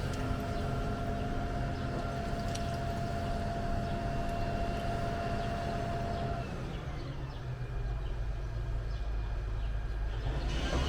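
Excavator engine and hydraulics running with a steady whine over a low rumble; about six and a half seconds in, the whine stops and a deeper rumble takes over.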